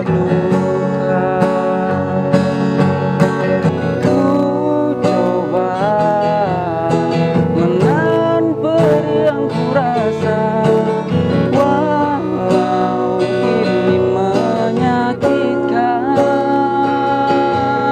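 Acoustic guitar strummed in a slow ballad, with a voice singing held, gliding notes over it.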